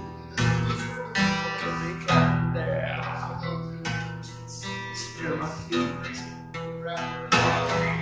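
Acoustic guitar strummed one chord at a time, each chord left to ring and fade before the next, about once a second.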